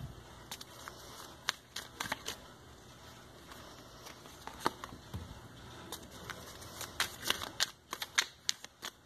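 Cards being handled and dealt: faint clicks and flicks as cards are slid out of a hand-held deck and laid face down on a glossy tabletop, with a quicker run of clicks near the end.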